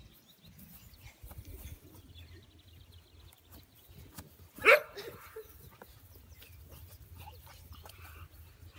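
An American bully puppy gives one short, sharp bark about halfway through, over a low steady rumble and faint scuffling.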